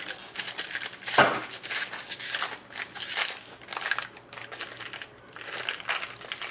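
Foil trading-card pack wrapper crinkling and tearing as it is peeled open by hand, in irregular crackles with one louder rip about a second in.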